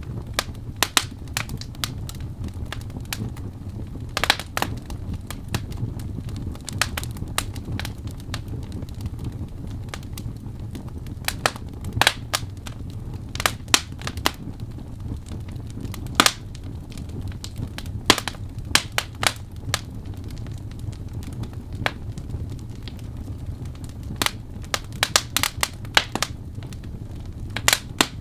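Wood fire crackling in a fireplace: irregular sharp pops and snaps, some in quick clusters, over a low steady rumble of the flames.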